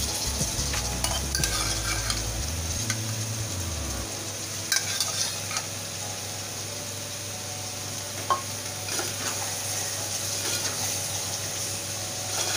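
Spice masala in oil sizzling steadily in a pot with chickpeas just added, with a few sharp clinks of a spatula against the pot.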